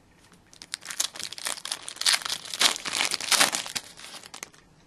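Foil wrapper of an Upper Deck Series 1 hockey card pack being torn open and crinkled as the cards are pulled out: a run of crackling rustles starting about a second in.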